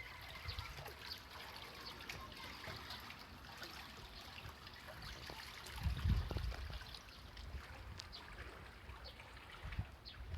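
Steady trickling of a stream, with scattered short high chirps and a brief low rumble about six seconds in.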